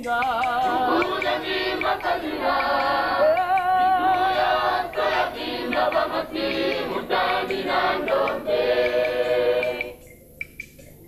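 A group of voices singing together, a choir-like song with wavering, sustained notes, which stops about ten seconds in.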